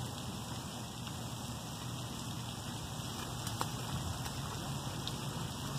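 Pond aerator fountain spraying, its falling water making a steady rain-like splash on the pond surface.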